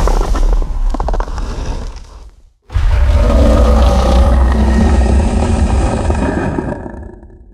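Wampa creature roar sound effect, a rough, growling monster roar with a deep rumble. One roar fades out a couple of seconds in, and after a brief gap a second, longer roar starts and fades away near the end.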